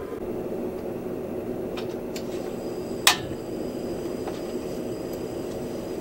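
Iwatani Petit Slim II butane cartridge stove being lit: a couple of light clicks as the knob is worked, then one sharp, loud igniter click about three seconds in, over a steady low hum.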